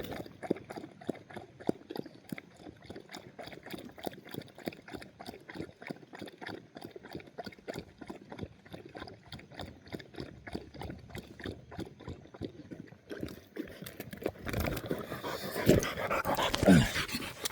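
A hunting dog lapping water from a collapsible water cup, a quick, even run of laps at about three or four a second, after a hot run. Near the end it gives way to louder rustling and movement.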